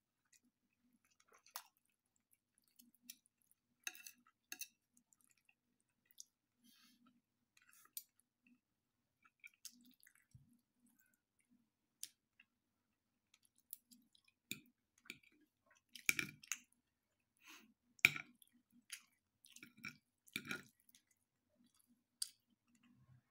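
Quiet eating sounds: chewing, and a knife and fork clicking and scraping on a ceramic plate, with scattered short clicks and a few louder clinks in the second half.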